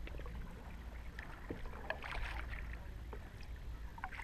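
Pedal kayak moving slowly through calm water: scattered small ticks and light splashes of water at the hull, over a low steady rumble of wind on the microphone.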